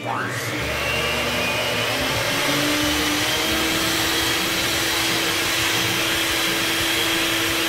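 Electric hand mixer running, its beaters whipping instant coffee, sugar and water into foam in a glass bowl. The motor whine rises as it spins up at the start, holds steady, and cuts off suddenly near the end.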